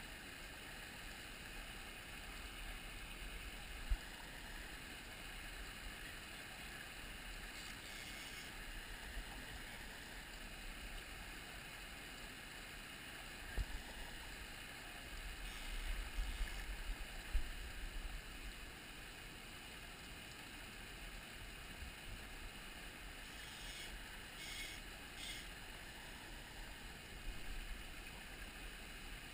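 Steady babble of a small, shallow mountain stream flowing over rocks. Low rumble and a few dull bumps from the camera being moved and wind on the microphone sound now and then, most of them around the middle.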